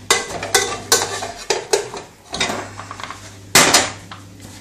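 Kitchen utensils and a saucepan lid knocking and clattering against a metal saucepan in a series of sharp knocks, the loudest about three and a half seconds in.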